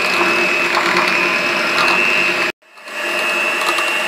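Electric hand mixer running steadily, a motor whine with a lower hum, its beaters whipping softened butter in a glass bowl while the butter is creamed to a pale, fluffy state. The sound cuts out abruptly for a moment about two and a half seconds in, then the mixer comes back at the same level.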